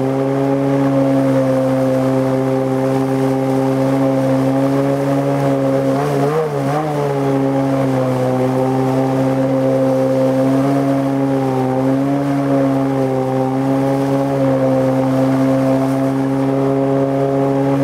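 Tohatsu M50D2S two-stroke outboard with a water-jet drive running steadily at high revs, driving an inflatable boat upstream. Its pitch dips briefly about six seconds in and wavers again near twelve seconds.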